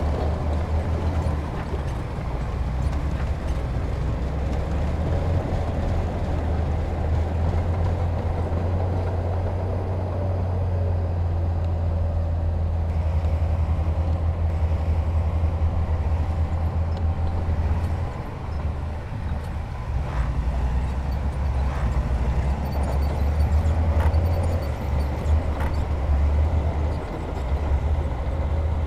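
Diesel engine of a heavy earthmoving machine running with a steady low rumble, easing briefly about two-thirds of the way through, with a few sharp knocks near the end.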